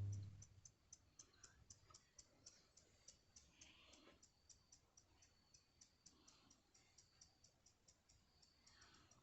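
Faint, evenly spaced high-pitched clicking, about four to five clicks a second, over near silence, with a short low thump at the very start.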